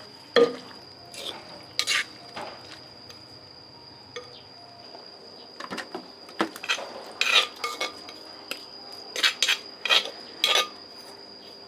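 Utensils clinking and knocking against dishes in irregular bursts, with a steady high-pitched tone behind.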